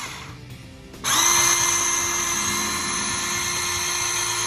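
Makita DPB182Z 18V cordless portable band saw running free with no cut. A short earlier run winds down at the start, then about a second in the motor spins up quickly and runs with a steady high whine.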